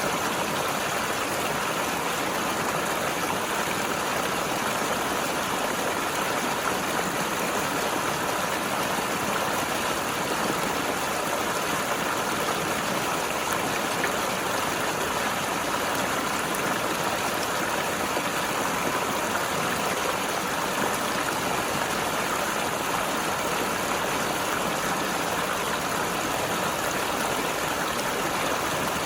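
Mountain river rushing and gurgling over rocks: a steady, even flow of water with no pauses or changes.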